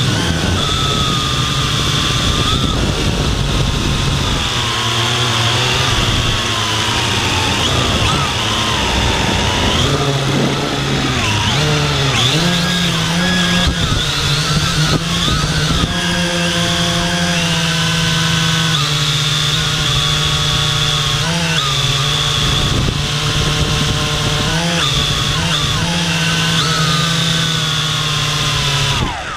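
Quadcopter drone's electric motors and propellers, heard close up from the drone's own camera: a loud, steady buzzing whine whose pitch wavers up and down as the motors change speed while it manoeuvres. Right at the end the motors cut out.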